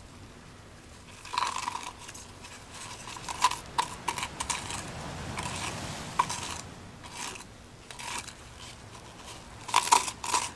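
Sand-filled epoxy resin being scraped and spread, an irregular gritty scratching that starts about a second in and comes in uneven strokes, busiest near the end. The scratchiness comes from the sand mixed into the resin.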